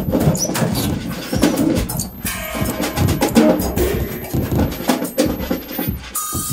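Free-improvised percussion played live: drums and wood-block-like clicks struck in quick, irregular hits. About six seconds in, a harsh buzzing tone starts.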